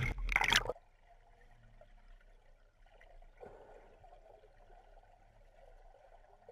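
Water splashing and gurgling for under a second as the camera dips below the river surface, then muffled underwater near silence with a few faint stirrings.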